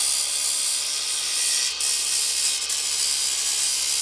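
A power tool grinding down sharp edges on a part: a steady, high hissing scrape over a running motor, briefly easing twice.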